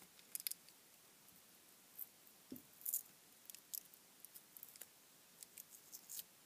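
Faint, scattered small clicks and crackles of a pointed hand tool picking at the tape and wire windings of a small power-supply transformer.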